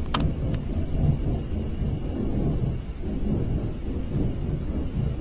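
A deep, continuous rumble with no clear pitch, from an unidentified source; the man recording it likens it to a giant flame. A brief high chirp cuts in just after the start.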